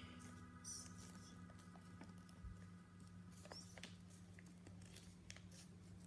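Faint crinkling and rustling of folded origami paper being handled and creased, a scatter of soft crackles and ticks over a low steady hum.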